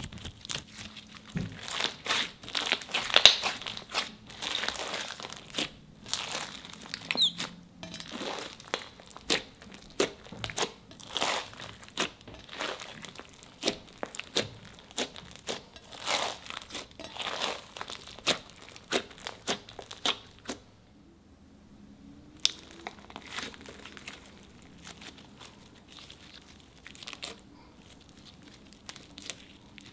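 Hands kneading, pressing and stretching a large batch of black slime mixed with Orbeez and play foam beads: a fast run of wet crackles and pops. The crackling is dense for the first twenty seconds or so, then thins out and gets quieter.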